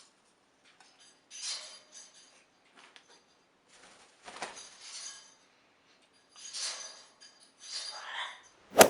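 Cutlery and dishes clinking during a meal, in four or five short bursts, with one sharp knock near the end.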